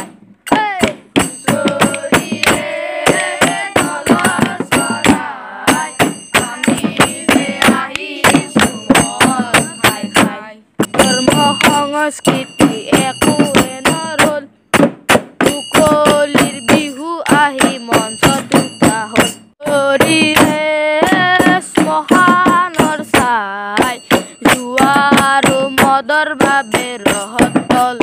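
Assamese Bihu folk music: dhol drums beating a fast, steady rhythm under a singing voice.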